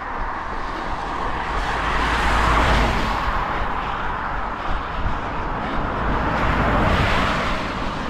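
Two cars passing one after the other, their road noise swelling to a peak about two and a half seconds in and again about seven seconds in.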